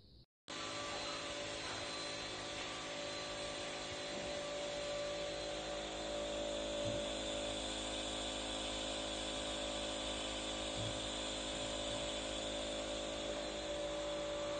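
Electric nebulizer compressor running steadily, a hum with hiss. It starts abruptly about half a second in.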